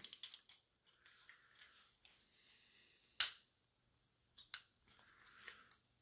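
Faint clicks and handling noises of a hand-held reloading press and a 7.62x39 cartridge being worked, with one sharper metal click about three seconds in and a few small clicks near the end.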